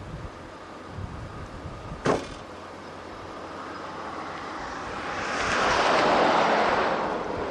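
A car passing on the highway: its tyre and engine noise builds from about halfway through, peaks, and fades away by the end. Before it, a steady wind rush on the microphone and a single short knock about two seconds in.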